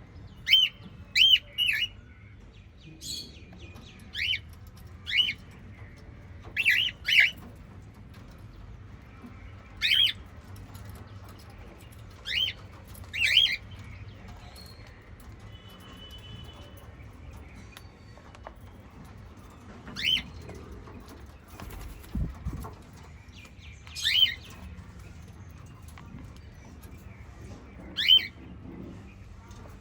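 Small pet parrots chirping: short, sharp, high calls, singly or in quick pairs, every second or few, with a few seconds' pause about halfway.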